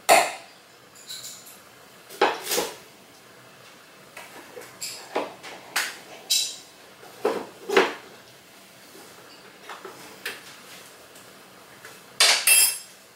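Intermittent clinks and taps of a metal measuring spoon against a bowl and container while measuring out xanthan gum, with a louder metallic clatter near the end.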